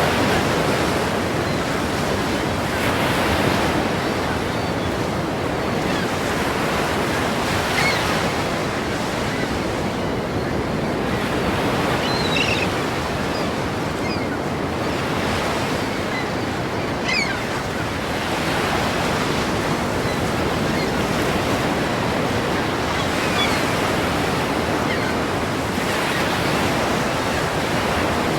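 Ocean waves breaking in a continuous wash of surf that swells and eases every few seconds.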